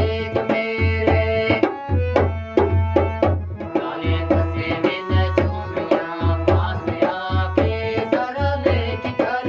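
Pahari folk song: a man sings over a harmonium's held chords, while a dholak drum beats a steady rhythm of deep bass strokes and sharper slaps.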